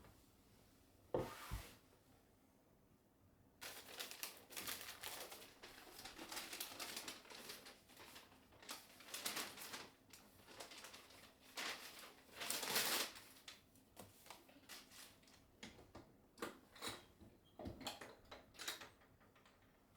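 Close handling sounds in a small room: one knock about a second in, then from about four seconds a long run of crinkling, rustling scrapes and light taps.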